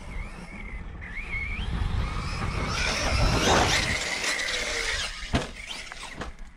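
Brushless electric motor of a 6S 1/10 RC monster truck whining, its pitch wavering up and down with the throttle. A loud rushing noise swells in the middle, and a sharp knock comes about five seconds in.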